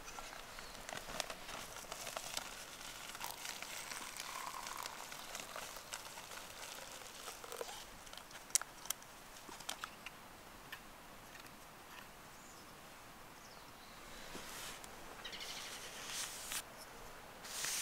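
Camp cookware being handled: scattered light clicks and knocks of a metal cook pot and a collapsible cup as hot water is poured from the pot into the cup to make coffee. There is a louder rustle near the end.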